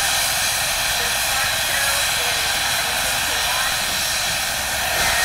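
Steady hiss of escaping steam from a steam engine, with faint voices underneath.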